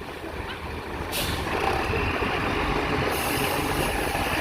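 Intercity bus's diesel engine running close by, with a short air-brake hiss about a second in. The engine grows louder soon after, as when the bus pulls away, and a steady high hiss of air comes in near three seconds.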